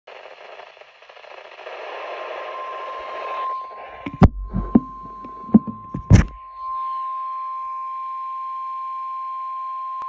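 NOAA Weather Radio warning alarm tone coming from a Midland weather alert radio's speaker: one steady tone that first sounds under radio hiss and then rings clean. A handful of sharp knocks fall between about four and six seconds in.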